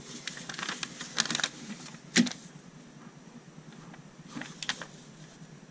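Paper LEGO instruction sheet rustling and crackling as it is handled: a run of short crackles, the sharpest about two seconds in, and a couple more near the end.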